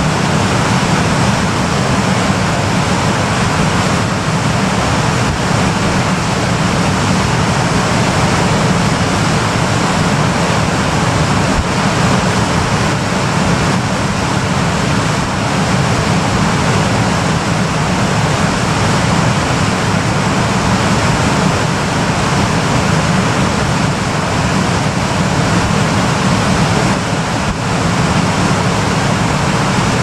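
Water pouring over a low concrete river weir: a steady rushing noise that never lets up.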